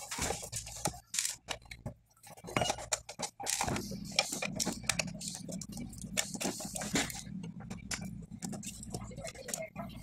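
Irregular clicks, taps and scrapes of a small screwdriver and hands working on the plastic housing of a Panasonic KX-TS500MX corded telephone as it is unscrewed and taken apart.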